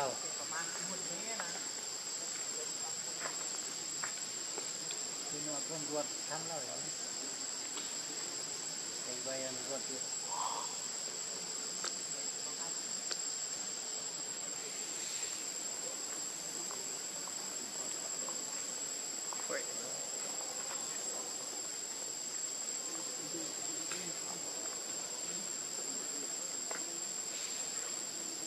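Steady, high-pitched insect chorus, one continuous shrill drone, with a few faint short chirps and rustles over it.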